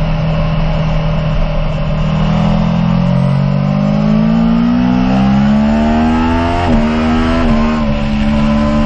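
Aprilia Tuono V4 1100 Factory's V4 engine heard from on board while riding: a steady note that rises over a few seconds as the bike accelerates, dips sharply twice about two-thirds of the way through, then holds level.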